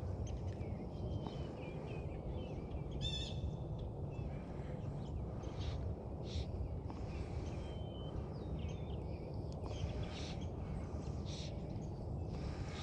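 Small birds chirping and calling now and then over a steady low outdoor rush.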